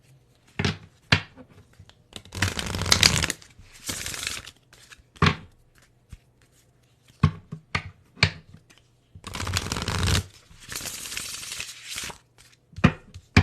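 Tarot cards being shuffled by hand: scattered sharp taps and flicks, with two longer rustling shuffle runs of about a second each, around two seconds in and again around nine seconds in.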